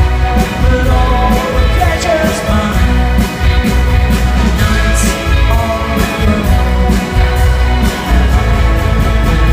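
Live pop-rock band playing with an orchestra: a strong bass and a steady beat, with some singing.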